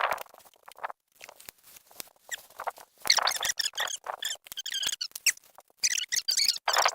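Vinyl siding being cut or worked by hand: irregular scraping strokes of plastic with squeaks, heavier from about three seconds in.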